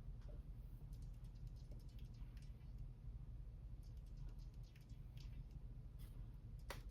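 Faint, scattered light clicks and taps of the opened watt meter's steel case and parts being handled, with one sharper click near the end, over a steady low hum.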